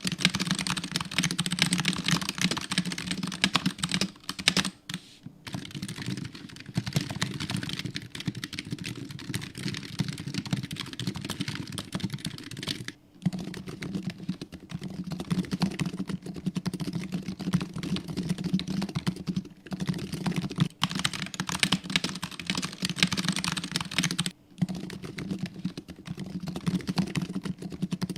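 Typing on a Razer Huntsman V2 keyboard with linear optical switches fitted with sound dampeners: a rapid, continuous clatter of keystrokes broken by a few brief pauses.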